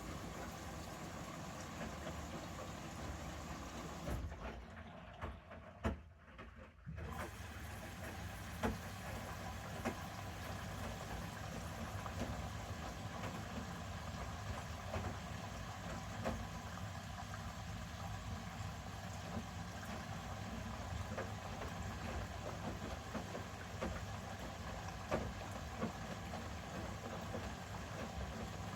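Bosch Series 6 front-loading washing machine running its main wash, the drum turning with the wet load tumbling inside. A short lull comes about five seconds in, and faint light clicks are scattered throughout.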